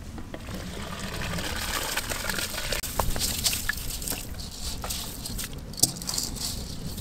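Wet rice poured from a metal bowl into a large aluminium pot of boiling water, sloshing and trickling, with a couple of sharp clicks, the loudest near the end.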